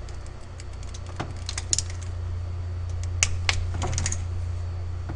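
Inch-pound torque wrench on cylinder head bolts of a 4.0-litre V8, a series of sharp metallic clicks spaced irregularly as bolts are brought to 180 inch-pounds. A steady low hum runs underneath.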